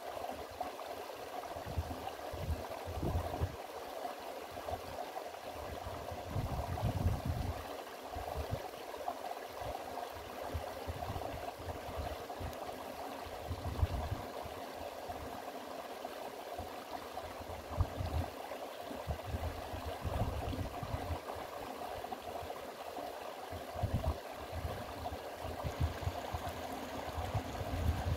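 Small rocky stream flowing steadily over stones, with irregular low rumbles now and then.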